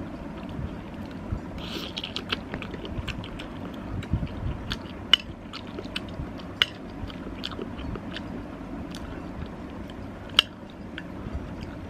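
Close-up eating sounds: a person chewing a mouthful of pasta soup, with frequent wet mouth clicks and a few sharper, louder clicks, the loudest about ten seconds in.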